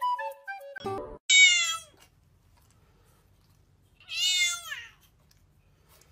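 A cat meowing loudly twice, each meow about half a second long and dropping in pitch at the end. A flute tune ends about a second in, just before the first meow.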